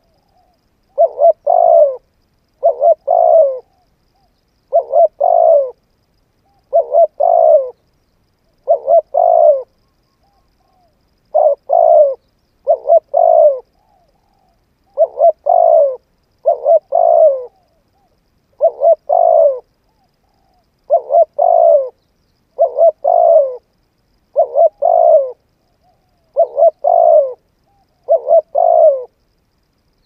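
Spotted dove cooing: a short phrase of two or three low coos, repeated about every two seconds with silence between.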